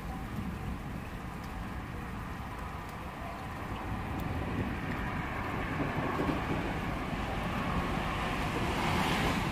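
Steady rain with a low rumble underneath; a rushing noise swells up through the second half and peaks near the end.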